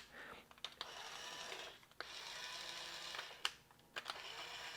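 Battery-powered toy drill's small motor whirring faintly in three short runs, each started or stopped by a click of the trigger.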